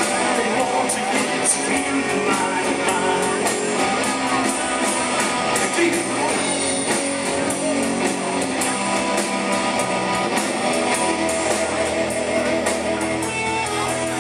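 Live rock band playing: electric guitars and bass over a drum kit, with cymbal hits keeping a steady beat.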